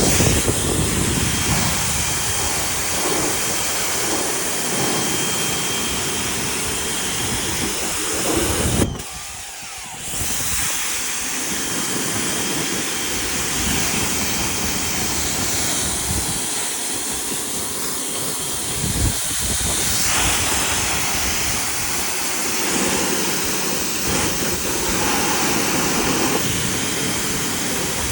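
Pressure washer spraying water onto a truck's paintwork, a steady hiss that breaks off for about a second near the middle before resuming.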